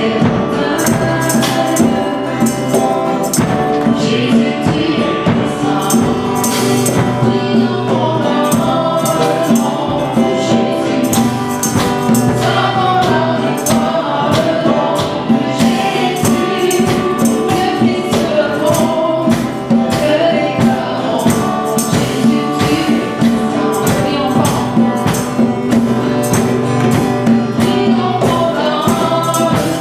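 Live worship music: several voices singing a hymn together over acoustic guitar and keyboard, with a tambourine keeping a steady beat.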